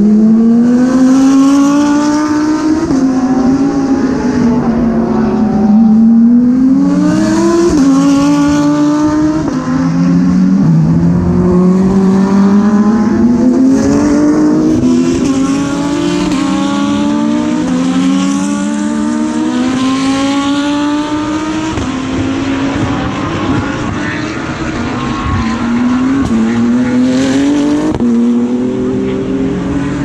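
GT3 race car engines at full racing revs, passing one after another: the pitch keeps climbing and snapping back down as the cars change gear, with several engines overlapping.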